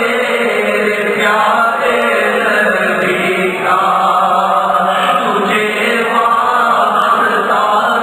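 Male voice reciting an Urdu naat, a devotional song praising the Prophet, in long chanted melodic phrases.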